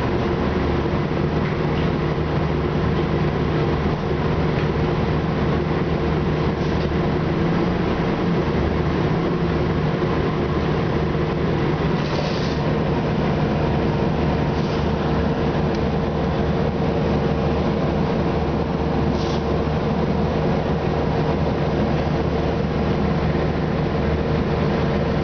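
Orion VII city bus with a Detroit Diesel Series 50 engine and Allison B400R automatic transmission under way, heard inside the passenger cabin: a steady engine drone and road noise with a constant whine.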